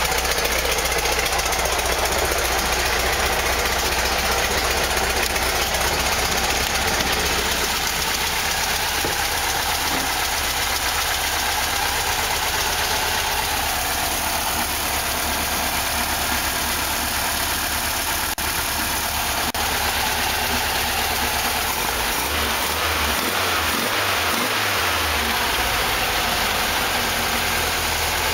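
A 1969 Volkswagen Type 3 Squareback's air-cooled flat-four engine, fitted with dual carburettors, idling steadily.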